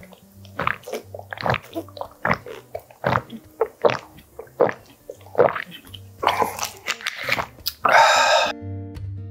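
Gulps of water swallowed from a plastic bottle, a loud gulp about every half to three-quarters of a second. About eight seconds in comes a short, loud voiced exhale, and then acoustic guitar music cuts in.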